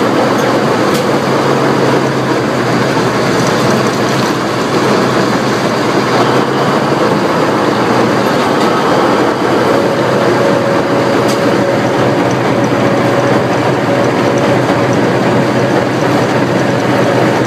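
Tank on the move: its engine running with a loud, steady drone and the clatter of its steel tracks, heard from on board.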